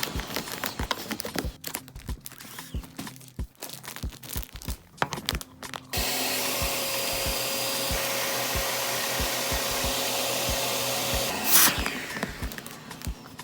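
Clicks and knocks over a steady low beat, then a small electric blower motor, like a hair dryer or vacuum, starts suddenly about six seconds in. It runs steadily with a rushing noise and a faint hum for about five seconds, and stops with a sharp knock near the end.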